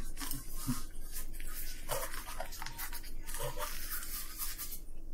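Close-up eating sounds: chewing and crunching of breaded fried chicken, with irregular rustling of a paper sandwich wrapper.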